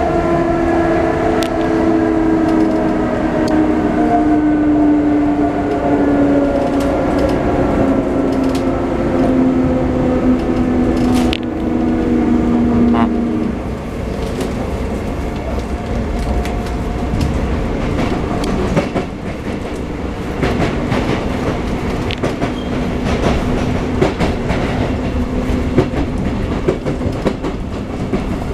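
Interior running sound of a Sotetsu 9000 series electric train with Hitachi IGBT-VVVF inverters: the inverter and motor whine, several tones together, slowly falls in pitch and cuts off abruptly about thirteen seconds in. After that, the rumble of wheels on rail with scattered rail-joint clicks remains.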